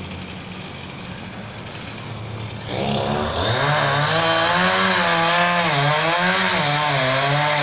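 Chainsaw idling low, then revved up about three seconds in and held at high speed while cutting into the tree trunk. Its pitch sags and recovers as the chain bites under load.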